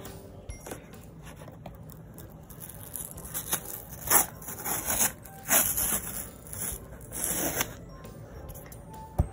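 Packing tape being peeled off a cardboard box in several ripping pulls, between about three and eight seconds in, with a sharp tap near the end.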